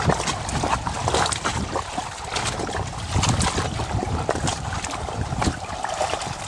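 Lake water sloshing and splashing around a wading angler's legs and hands, with wind buffeting the microphone as a low rumble. Near the end there is a splash as the released carp kicks away.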